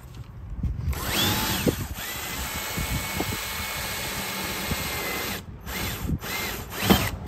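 Cordless drill boring an 8 mm hole through about 10 mm of jet ski hull plastic: it runs steadily for about four seconds, stops, then gives three short bursts near the end.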